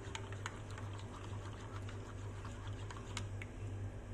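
A spoon stirring liquid in a ceramic mug, giving light, irregular clinks against the mug's sides, over a steady low hum.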